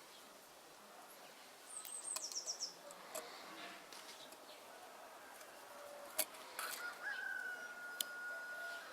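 Bird chirping in the background: a quick run of high chirps about two seconds in, and a steady whistled note near the end, with a few sharp clicks in between.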